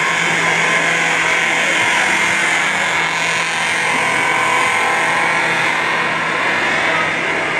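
Siemens U-HN-MCS mechanical fire alarm horn sounding on its continuous setting: a loud, steady buzz without pauses, the building's fire alarm signal.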